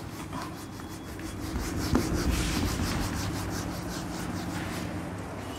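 Whiteboard eraser rubbing back and forth across a whiteboard, wiping off marker writing in quick repeated strokes, a little louder from about two seconds in.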